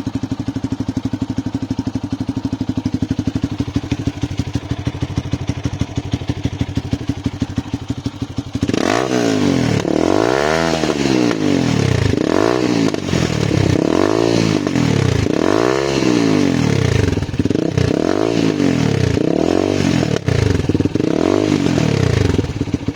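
Lifan KP250 motorcycle with a straight-through exhaust, idling with a steady fast pulse. From about nine seconds in it is revved again and again, about seven blips, each rising and then falling in pitch.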